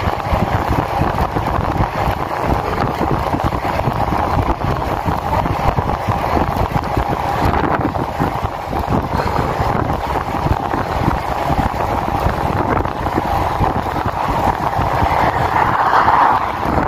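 Steady rush of wind over the microphone of a handlebar-mounted camera on a road bike riding at speed, swelling briefly near the end.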